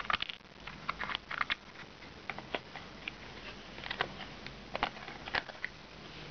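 Irregular light clicks and taps of fingers handling a small assembled cardboard cube.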